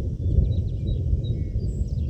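Strong gusty wind buffeting the microphone as a loud low rumble, with birds chirping and trilling faintly above it.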